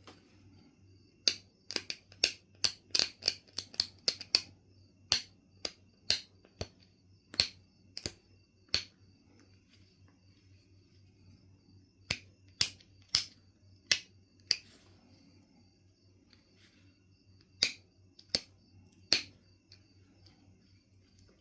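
Knife River flint being knapped: a run of sharp, crisp clicks as flakes snap off the stone, many in quick succession over the first nine seconds, then a pause, then two shorter groups of a few clicks each.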